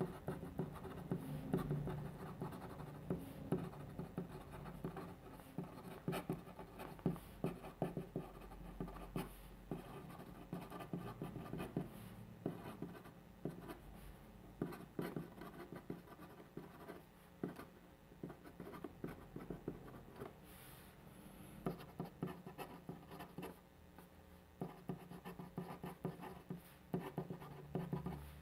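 Pen nib writing on paper: a continuous, irregular run of short scratching strokes as Korean handwriting is written out.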